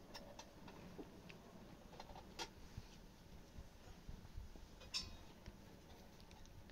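Near silence with a few faint, scattered clicks and taps; the sharpest comes about five seconds in.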